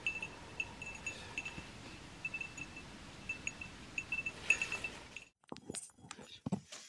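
A small bear bell on a hiker's pack jingling with each step in an uneven rhythm, its bright ring at one fixed pitch. It stops about five seconds in, leaving a few knocks and rustles.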